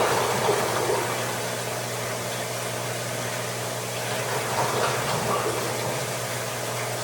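Aquarium sump pump humming steadily under rushing, gurgling water in the overflow drain and sump, a little louder just at the start and again about five seconds in. The overflow is filling up, which the owner puts down to the drain hose not holding enough air to keep the water flowing down to the sump.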